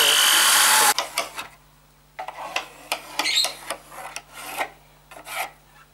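Corded electric drill running as it screws a side piece onto the pine shelf, loud and cutting off abruptly about a second in. Then scattered knocks, clicks and scraping as the wooden pieces are handled.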